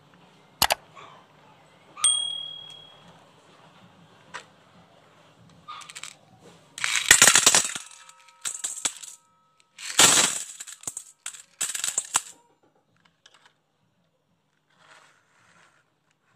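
Glass marbles tipped from a plastic box clattering into a metal bowl in two dense bursts a few seconds apart, the bowl ringing on after them. A few single clinks come before, one of them ringing out clearly about two seconds in.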